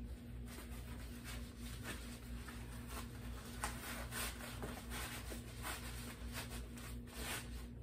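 Rustling and crinkling of the Two Scoops animatronic's shiny costume sleeve as an arm piece is fished up through it, in a string of irregular soft scrapes over a steady low hum.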